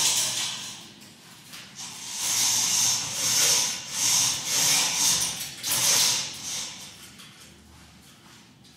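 A run of rustling, hissing strokes, about one every half second to a second, that dies away after about six and a half seconds.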